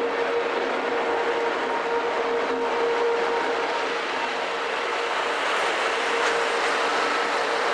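Network Rail rail grinding train passing slowly at close range, with a steady whine over continuous running and wheel noise.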